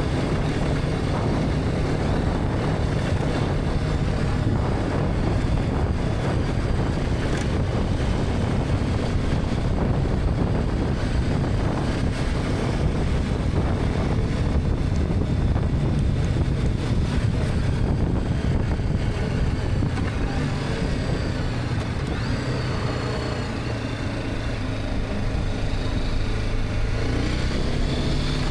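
BMW G310R's single-cylinder engine running steadily under way, mixed with wind and road noise. The engine eases off slightly a little past two-thirds of the way through, then picks up again near the end.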